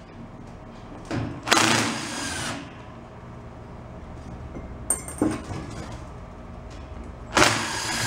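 Cordless drill-driver backing out the screws that hold a floor fan's metal grille shell, running in two short spurts, about a second in and again near the end, with a single click in between.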